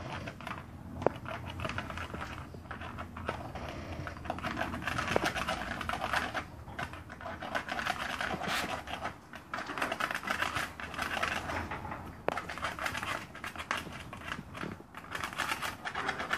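A stiff brush scrubbing the hard, wet shell of a snapping turtle: repeated rasping strokes with a few sharp clicks.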